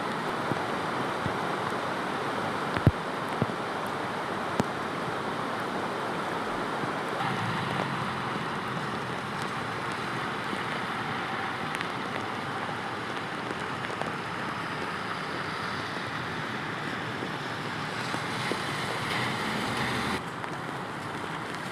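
Steady rush of fast, high floodwater in a swollen river, with a few brief knocks about three and five seconds in.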